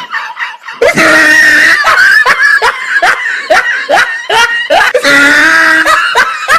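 Loud, high-pitched screaming and cackling cries, used as a comedy sound effect, in quick short bursts of two or three a second. The cries are softer for the first second, then become loud.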